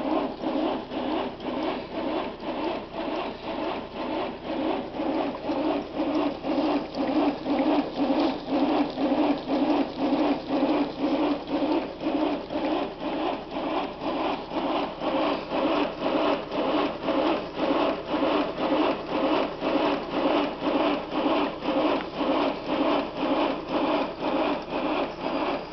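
Quarter-scale Hunslet miniature steam locomotive running on a rolling road: a fast, even mechanical clatter from the wheels turning on the rollers, growing a little louder after a few seconds. This rolling-road noise drowns out the locomotive's exhaust chuffs.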